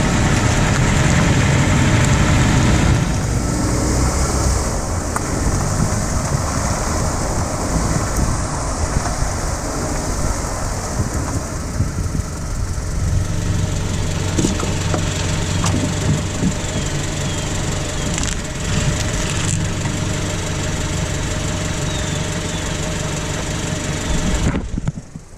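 A 2015 Jeep Renegade's engine runs steadily, with a few sharp clicks or pops over the middle part. These pops come from a failing plastic sway bar end link in the front suspension.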